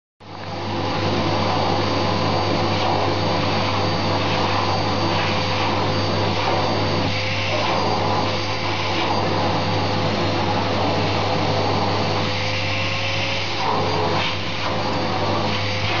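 Vacuum cleaner running steadily: a constant rush of air with a steady motor whine, wavering briefly a few times.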